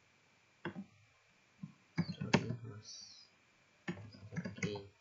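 Computer mouse clicks and keyboard keystrokes: a double click-clack about a second in, then irregular short clicks and taps in two small clusters.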